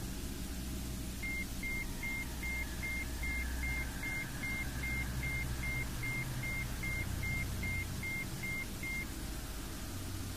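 Low, steady droning tones of a meditation-frequency track. Over them, a run of about twenty short, evenly spaced high beeps, about two and a half a second, starts a little over a second in and stops near the end.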